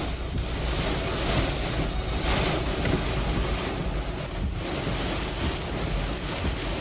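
Hurricane-force eyewall winds blowing in strong, surging gusts, with a heavy low rumble of wind buffeting the microphone.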